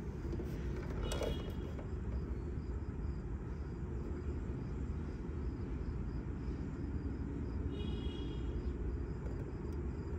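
Steady low rumble of outdoor background noise, with a short high chirp about a second in and another near eight seconds.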